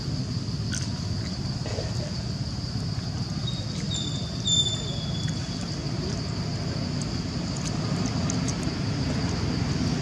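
Forest ambience: a steady low rumble under a constant high-pitched drone, with a brief high chirp about four and a half seconds in.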